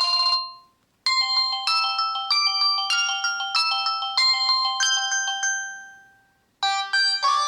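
Samsung E1170 mobile phone ringtones: one tone cuts off just after the start, then a synthesized ringtone melody plays a note about every 0.6 seconds over a held low note and dies away. Another ringtone begins near the end.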